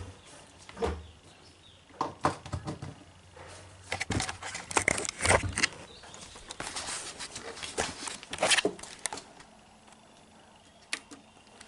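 Handling noise around a DVD home cinema unit being readied for a test: irregular clicks and knocks, with a denser stretch of clattering and scraping in the middle few seconds.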